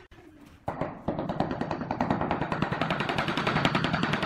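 Rapid, steady knocking on a large ceramic floor tile as it is tapped down and bedded into the mortar, starting just under a second in.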